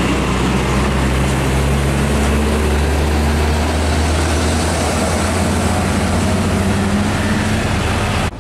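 Heavy diesel trucks running and passing close by, a steady low engine drone mixed with tyre and road noise. The sound drops abruptly near the end.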